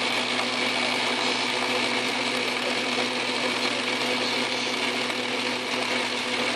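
Craftsman/Atlas metal lathe running steadily, its motor, belts and gears giving a constant hum with a higher whine.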